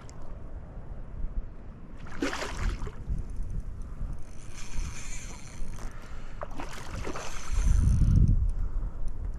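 Hooked redfish thrashing and splashing at the surface beside a kayak, in bursts about two and seven seconds in, with a low rumble of wind on the microphone that is loudest near the end.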